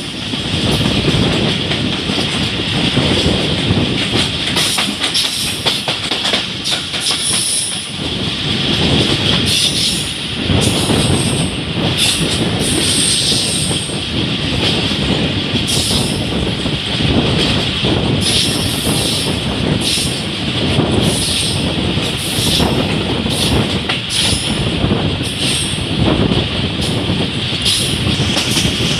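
Train running along the track, heard from on board: a steady loud rumble of wheels on rail with irregular clicks and rattles.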